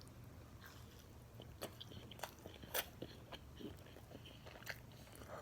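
Faint wet chewing of a soft canned Vienna sausage: scattered small clicks and smacks of the mouth, the clearest about two and a half to three seconds in.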